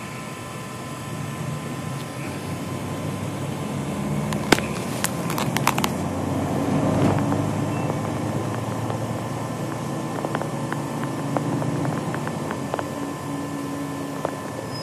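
Running noise inside a moving vehicle's cabin: a steady engine and road rumble, with a few sharp clicks and rattles about four to six seconds in.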